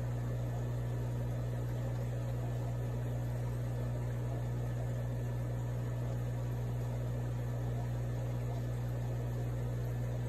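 Steady low electrical hum with an even hiss over it, unchanging in pitch and level.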